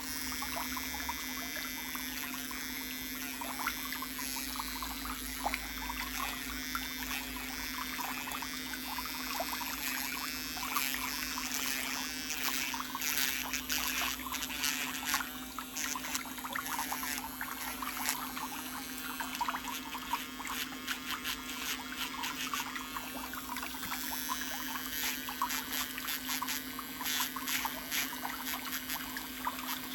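Water trickling and pouring steadily, with many small splashy ticks and a faint steady hum underneath.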